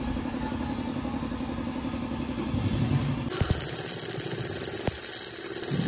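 An engine running with a steady rumble; about three seconds in it gives way suddenly to a steady high hiss, and the rumble comes back near the end.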